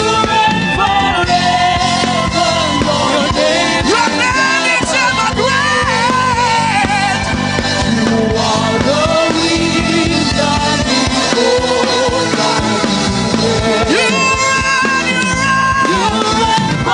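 Worship music: a voice singing with sliding, bending pitch over sustained instrumental accompaniment.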